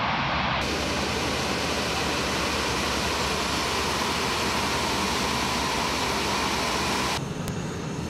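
Steady jet engine noise from the Airbus A380 test aircraft, a dense even rush of sound. It changes abruptly about half a second in and drops to a quieter background near the end.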